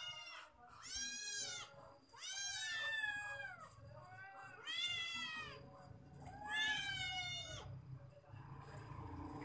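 A cat meowing about five times in a row, each meow rising and then falling in pitch, about a second or more apart.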